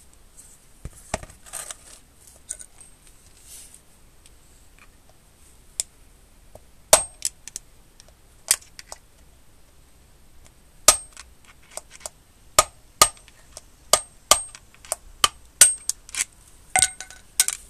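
Hammer striking a screwdriver to tap the old ball bearing out of a mobility scooter wheel hub: a run of sharp metallic taps with short ringing, irregularly spaced, mostly in the second half after a few softer clicks at the start.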